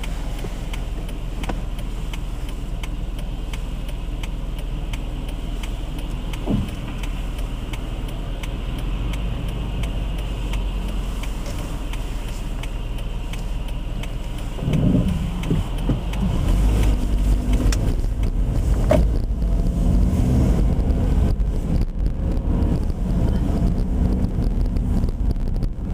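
Car driving, with steady engine and tyre noise that grows louder and rougher about halfway through.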